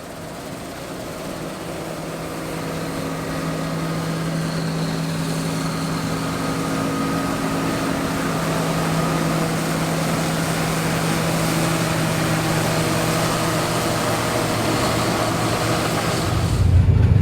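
John Deere 9750 STS combine running at harvesting load, its 325 hp diesel engine and threshing machinery making a steady hum that grows louder as the machine comes closer. Near the end it changes abruptly to a louder, deeper rumble.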